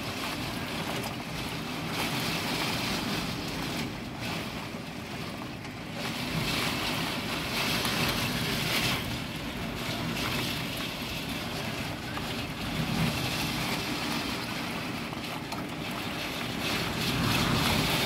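Heavy typhoon rain and gusting wind beating against a window, with water streaming down the glass. The rushing noise swells and eases with the gusts.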